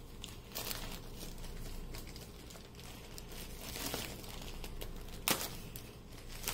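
Packaging bag crinkling and rustling as it is handled to be opened, with a few sharper crackles, the sharpest a little past five seconds in.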